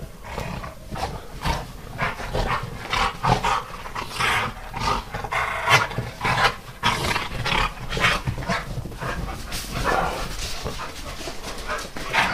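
Two dogs play-fighting in snow: a run of short, irregular dog noises, with panting and scuffling as they wrestle.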